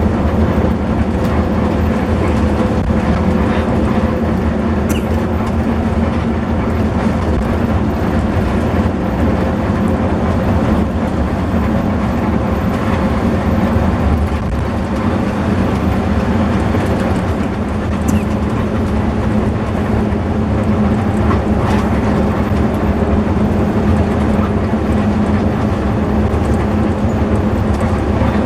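Intercity bus running on the road, a steady engine hum mixed with road and cabin noise.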